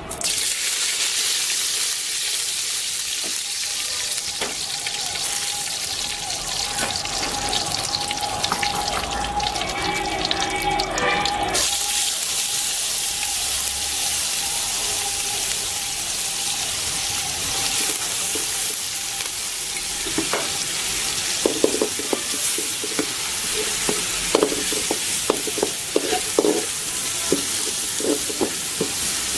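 Ground masala paste sizzling as it fries in hot oil in a pan. In the last third, a spoon knocks and scrapes against the pan as it is stirred.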